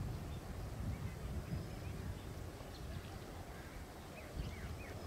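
Low rumble of a distant passenger train running, with a few short bird chirps about four seconds in.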